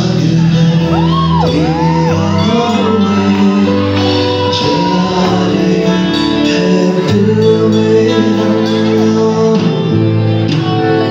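Live band performance: a male singer singing into a microphone over drums and keyboards, loud and continuous, heard from the audience in a large hall.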